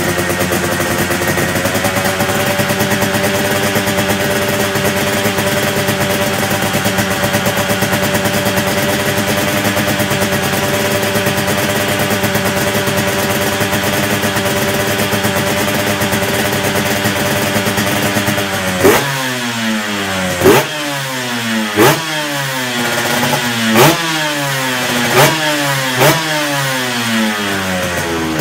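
Honda NSR250's two-stroke V-twin engine with expansion-chamber exhaust, idling steadily and then, from about two-thirds of the way in, blipped sharply about six times, each rev rising and falling quickly.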